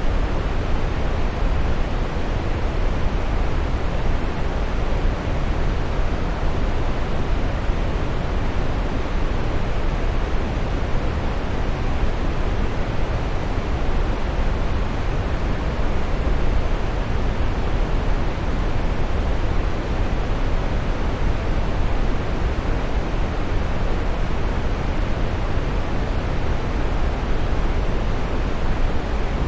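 Waterfall rushing: a steady, unbroken roar of falling water, heaviest in the low range.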